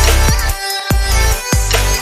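Electronic background music with heavy bass and a steady beat.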